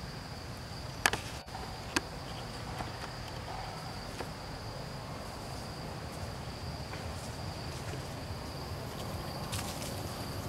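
Forest insects keeping up a steady high-pitched hum, with two sharp clicks about one and two seconds in.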